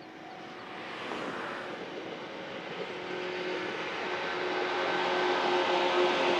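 JR 117 series electric multiple unit running past on the line, its noise growing steadily louder as it comes closer, with a steady hum running under it from about three seconds in.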